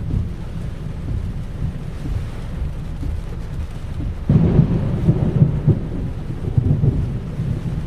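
Typhoon wind and heavy rain making a steady low rumble, which swells suddenly and more loudly about four seconds in.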